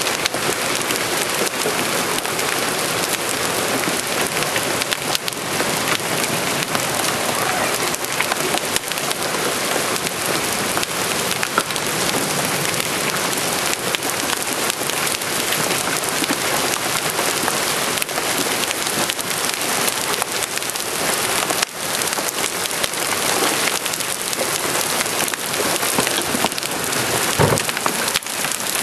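Hailstorm with heavy rain: a dense, steady rush of falling precipitation dotted with many sharp cracks of individual hailstones, some close to golf-ball size, striking.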